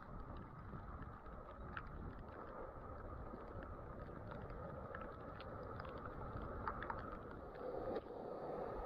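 Rough surf washing over rocks, mixed with wind, as a faint steady rush, with a few light ticks scattered through it.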